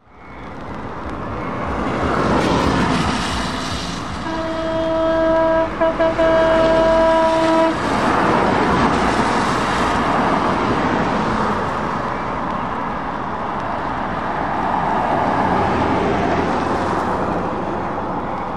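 Traffic passing on a wet road, tyres hissing through standing water with engine noise underneath, swelling as vehicles go by. About four seconds in, a horn sounds for roughly three and a half seconds, broken twice briefly.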